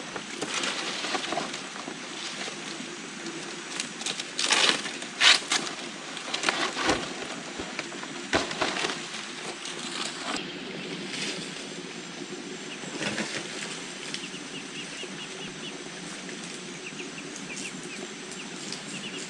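Palm fronds rustling and crackling as they are handled and laid over a wooden pole frame, with several louder rustles in the first half. Faint chirps in the last few seconds.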